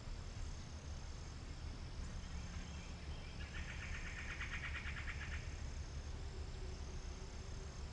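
Steady high-pitched insect buzzing over a low rumble, with a rapid pulsed trill lasting about two seconds from about three and a half seconds in.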